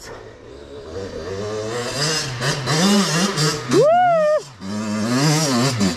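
Small dirt bike's engine revving up and down as it climbs a steep dirt hill. A person whoops "woo!" about four seconds in.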